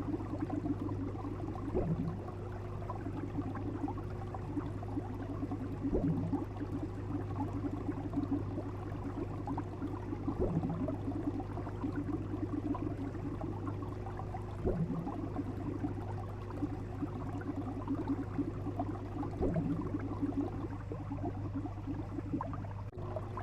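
Steady bubbling, crackling water noise over a constant low hum, like an aquarium heard underwater, with a short low knock about every four to five seconds.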